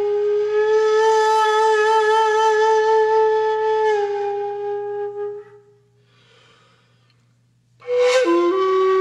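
Slow music on a flute-like wind instrument: a long held note fades out about five and a half seconds in. After a short silence, a breathy attack starts a new note that drops in pitch and then holds.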